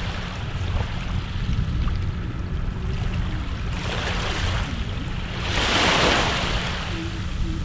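Sea waves washing in, swelling twice into a rush of hiss, the louder one near the end, over a steady low rumble of wind.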